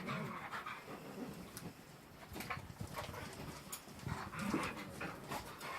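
Dogs and puppies play-fighting, with panting and scuffling in irregular bursts and short scattered clicks.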